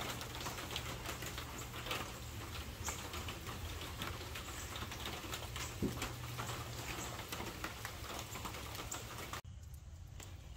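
Steady rain pattering, a dense run of small drop taps over an even hiss. Near the end it cuts off abruptly to a quieter background.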